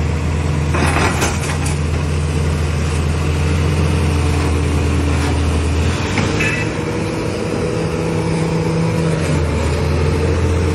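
A large engine running at a steady speed with a deep hum. The lowest part of the hum drops back about six seconds in and returns near the end.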